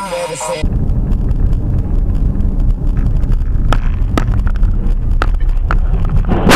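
Moving vehicle's road noise, a heavy low rumble with wind buffeting the microphone, with several sharp clicks scattered through it.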